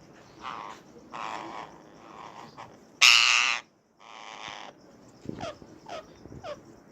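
Rose-ringed (Indian ring-necked) parakeets calling, given as their mating call: a string of harsh squawks, the loudest and longest about three seconds in, then three short falling chirps near the end.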